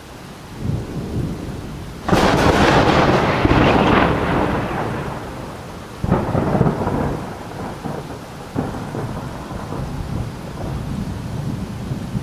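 Thunder with rain: a sudden crack about two seconds in fades over a few seconds, followed by two more lower rolls about six and eight and a half seconds in.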